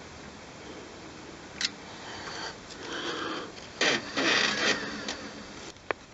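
Scraping and rubbing of tools against metal parts as the motor mounting screws of a Miele washing machine are tightened, with a sharp click about a second and a half in and another shortly before the end.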